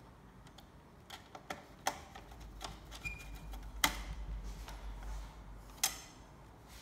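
Irregular light clicks and taps of a circuit board and small parts being handled on a workbench, with two sharper knocks about four and six seconds in.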